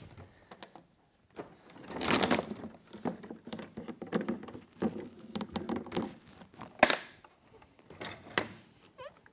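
Pilates reformer carriage being lifted and flipped over by hand: a handling rustle about two seconds in, then clattering, knocking and jingling from its metal undercarriage hardware, with sharp clicks near the end.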